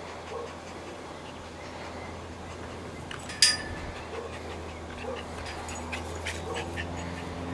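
Small poodle making short dog sounds as it plays, with one sharp knock about three and a half seconds in.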